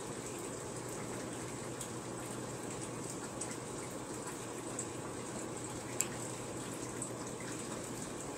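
Steady running and trickling water from aquarium filtration in a fish room, with one short click about six seconds in.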